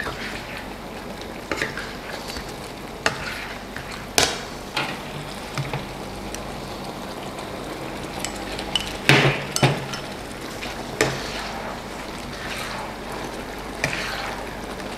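Spatula stirring a pan of simmering sauce, with repeated sharp knocks and clinks of the utensil against the pan. The sauce is being thickened with a cornstarch slurry.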